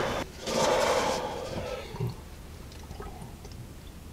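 Water splashing and running, starting about half a second in and trailing off after a couple of seconds.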